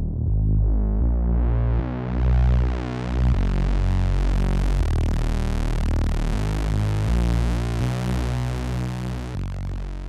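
u-he Zebra software synthesizer playing its 'The Monolith' bass preset: a run of deep sustained notes that change every second or so. Its tone brightens over the first couple of seconds and dulls again near the end.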